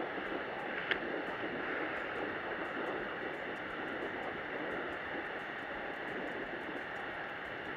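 Canister gas camping stove burner running with a steady hiss, with one short click about a second in.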